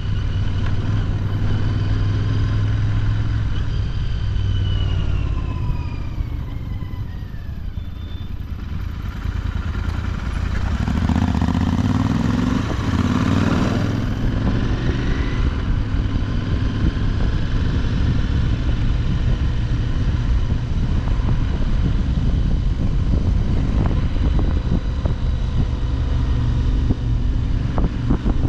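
Royal Enfield Continental GT650's parallel-twin engine with stock exhaust, running on the road. The revs fall over the first several seconds, pick up again around the middle, then settle into a steady cruise.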